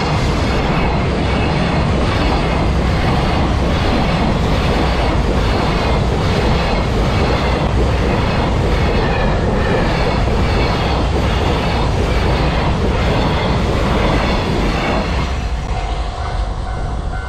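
A freight train's wagons rolling past close by at speed, the wheels clattering in a steady rhythm. It is loud throughout and eases a little near the end.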